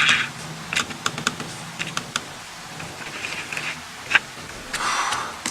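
Dell Inspiron 15 3000 laptop's touchpad button being pressed, giving several sharp, irregularly spaced plastic clicks.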